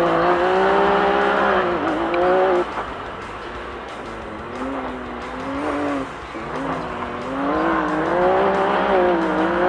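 Off-road race vehicle's engine under racing throttle, rising and falling in pitch. It drops back for a few seconds about a third of the way in, then builds again toward the end.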